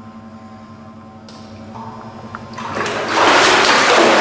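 A small electric pump hums steadily while it drains water from a flooded sump. Near the end, a loud rush of water sets in and keeps going.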